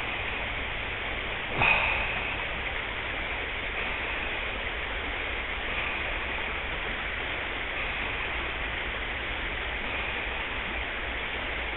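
Shallow river riffle running over rocks, a steady rush of water. A single sharp knock about a second and a half in.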